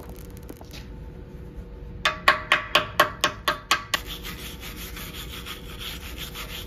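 A run of about eight sharp metal strikes, roughly four a second, each ringing briefly. Then a hand wire brush scrubs back and forth over the steel. The brush is cleaning slag off a fresh 7018 stick-weld root pass.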